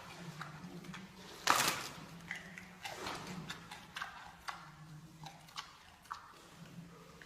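Giant panda eating bamboo: a loud snap of bamboo about a second and a half in, then a run of short crunching clicks as it bites and chews.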